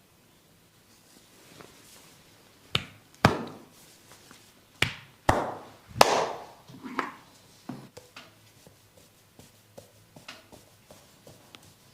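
A run of sharp hand slaps on the body during a massage, about seven in five seconds at an uneven pace, the loudest near the middle.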